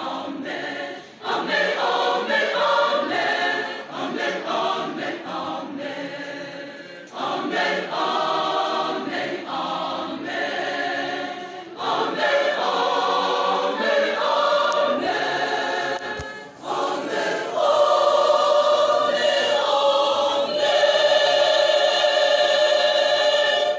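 Large mixed church choir singing a hymn without instruments, in phrases with short breaths between them. The last few seconds are long held chords that cut off suddenly at the close.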